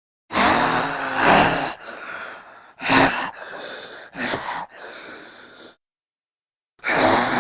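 Male zombie vocal sound effect: a voiced, raspy cry about a second and a half long, followed by breathy hissing and two short, sharp intakes of breath. After a second of silence, another voiced cry begins near the end.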